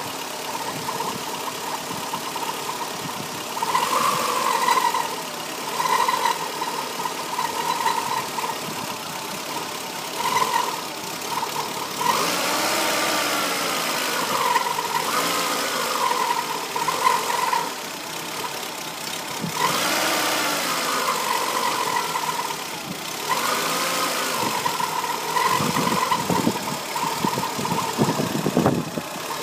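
VW Polo 1043cc four-cylinder engine in a Trabant 1.1, idling and blipped up and down a few times. At low rpm a steady high whine comes and goes, and it drops out when the engine is revved. This is the strange low-rpm noise the owner suspects may be a bearing; it persists with a new water pump and timing belt and with the alternator belt removed.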